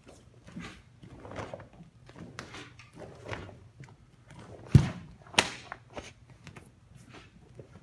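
Bare feet stepping and pivoting on a wooden floor, with the cloth of a karate gi rustling and snapping, during a karate kata. About five seconds in there is a heavy thud, then a sharp smack just after it, both much louder than the rest.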